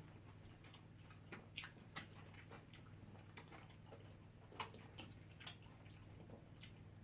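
Near silence with faint eating sounds: a handful of soft, scattered clicks and smacks from chewing and utensils.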